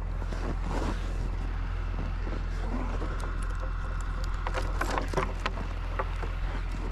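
A metal gate chain clinking and rattling against a wooden pen gate as it is unhooked, with a cluster of sharp clicks about four to five seconds in. Scuffing and handling noise in snow run over a steady low rumble.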